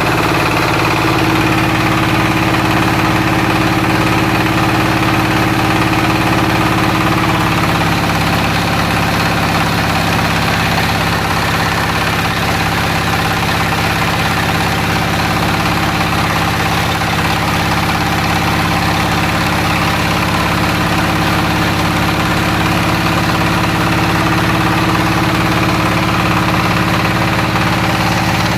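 Floating fish-feed pellet extruder machine running steadily with a constant mechanical hum.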